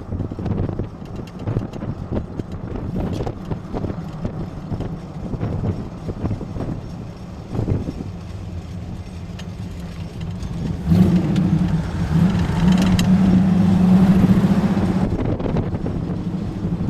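Jeep CJ engine running while driving. About two thirds of the way in it gets louder as the Jeep accelerates, the engine note climbing for a few seconds before easing off near the end.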